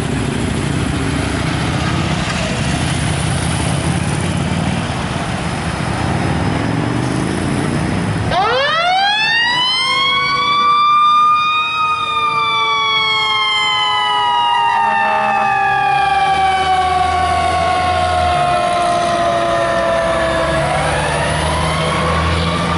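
Fire department emergency vehicle siren winding up sharply about eight seconds in, then slowly falling in pitch and winding up again near the end, over a low engine rumble.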